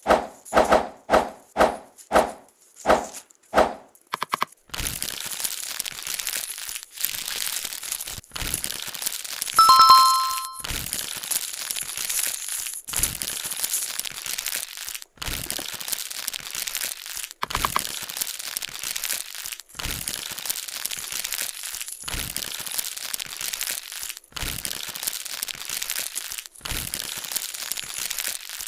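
A parcel's plastic packaging rustling and crinkling as it is handled and opened, in stretches of about two seconds with short breaks. It opens with a quick run of about eight sharp taps, and a short two-note chime sounds about ten seconds in.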